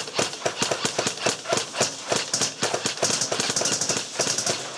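Airsoft guns firing: a rapid, irregular clatter of sharp snaps, several a second, with no let-up.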